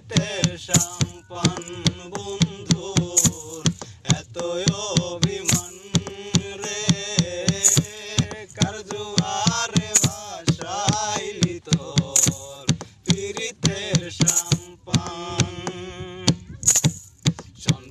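Male voices singing a Bengali folk song, accompanied by hands drumming a steady beat on a plastic jerrycan.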